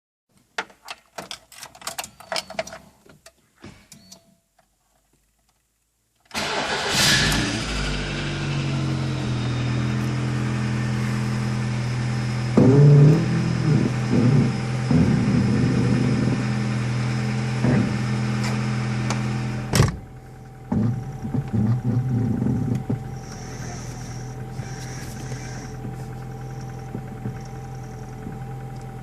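Lada Kalina engine starting about six seconds in after some clicks, then idling steadily, with irregular creaks from the steering as the wheel is turned. The owner hears this creak only just after starting, and it goes away after a few quick turns of the wheel.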